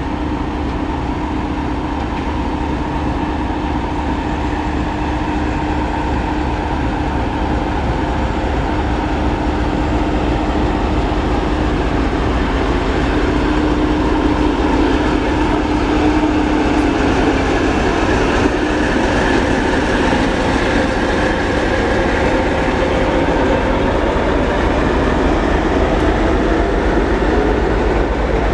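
TEP70BS diesel locomotive moving past at low speed at the head of a passenger train, its engine running with a steady drone. The coaches then roll by with a little wheel clatter, and a rising tone comes in near the end as the train gathers speed.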